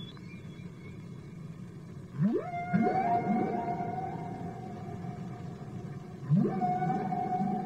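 A musical instrument sliding up steeply in pitch and settling into a long held note, twice, about four seconds apart, over a steady low hum.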